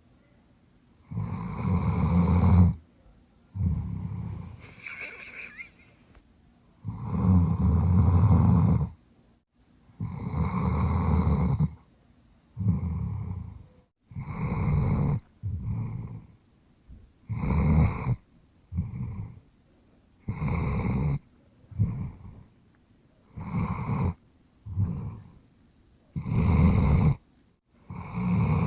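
A Dobermann dog snoring loudly in her sleep: a run of about fifteen snores, each one to two seconds long with quiet gaps between. The snores come closer together and often in pairs in the second half.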